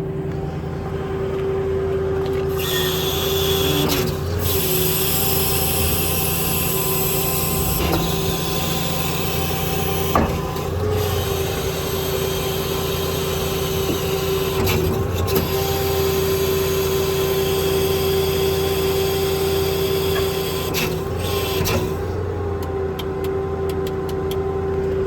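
6.4 Power Stroke diesel in a Ford F550 running with the PTO engaged, with a steady whine over the engine rumble. A loud hiss comes in about two seconds in, is broken by short pauses, and dies away shortly before the end.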